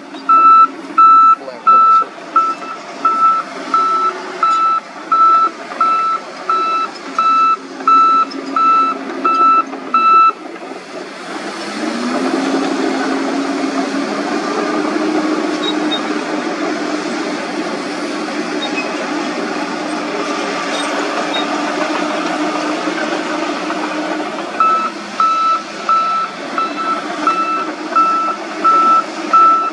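Shantui crawler bulldozer's backup alarm beeping about one and a half times a second while it reverses, over its diesel engine. About ten seconds in the beeping stops, and the engine revs up and runs steadily as the dozer drives forward. The beeping starts again near the end.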